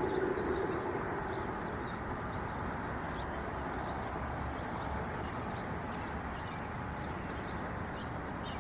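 Wind blowing steadily, with a small bird giving short high chirps over and over, about one every half second to a second.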